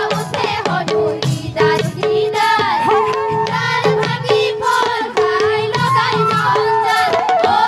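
Assamese dihanam devotional song: a woman sings a bending, ornamented melody over fast hand-drum strokes and a short steady note that repeats in a regular pattern.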